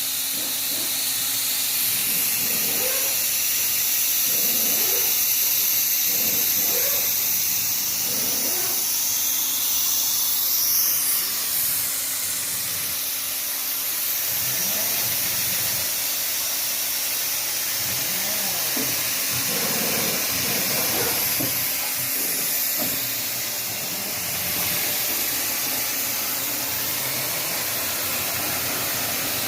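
Compressed air hissing out steadily, as when air is let out of a tyre on a pneumatic tyre changer.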